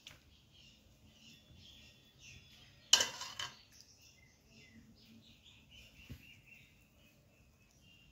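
Quiet kitchen work: a sharp clink of a spoon against a steel bowl about three seconds in, while samosa filling is scooped, with a smaller tap later. Faint bird chirps can be heard in the background.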